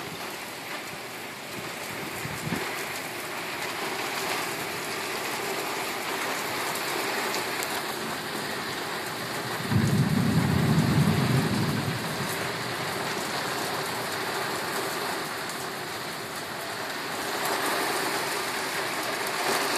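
Rain falling steadily during a thunderstorm, with a low roll of thunder lasting about two seconds near the middle.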